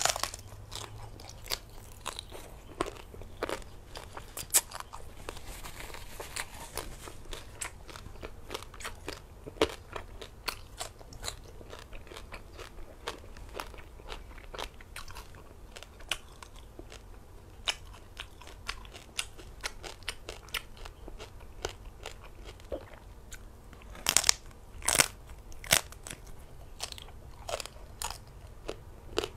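Close-up eating sounds: roasted pork being bitten and chewed, a steady run of sharp crunches, with a cluster of louder ones about 24 seconds in.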